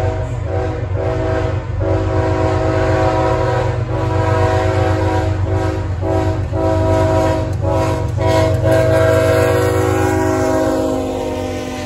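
Norfolk Southern diesel locomotive's air horn blowing a long run of blasts with brief breaks between them, over the low rumble of the diesel engines. Near the end the horn's chord drops in pitch as the locomotive passes close by.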